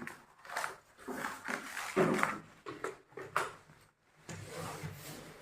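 Scattered knocks and rubbing of objects being handled, with a faint voice in the background about two seconds in.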